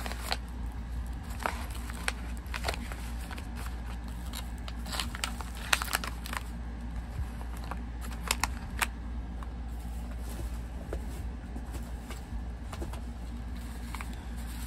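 Packaging being handled: scattered clicks and crinkles, mostly in the first half, then sparser, over a steady low hum.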